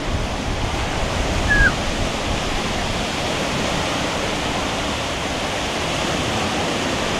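Steady rush of water, with a brief low bump and a short high falling chirp about one and a half seconds in.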